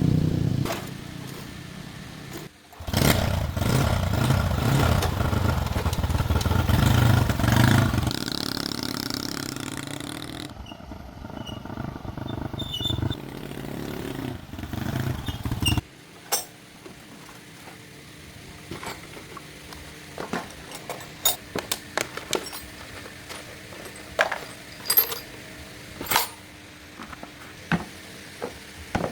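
Motorbike engine running and revving for about the first half, then it cuts off suddenly, leaving scattered sharp clicks and taps.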